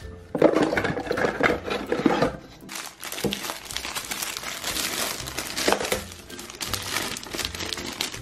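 Cardboard box flaps being handled, then a clear plastic bag crinkling and rustling in the hands as the kit's contents are taken out, with irregular crackles.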